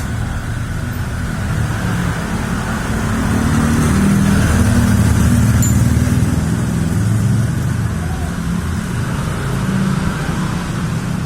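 A motor vehicle engine running with a low rumble that grows louder for a few seconds midway, then eases off.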